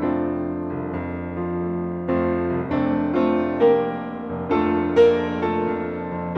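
Piano music: a slow melody of single notes over held chords.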